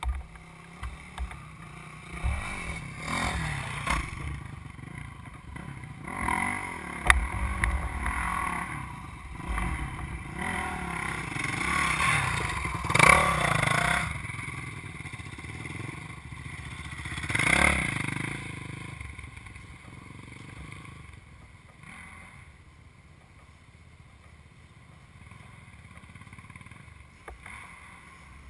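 Dirt bike engine revving up and down as the bike rides through sand, growing louder to a peak about halfway through, swelling once more a few seconds later, then fading away.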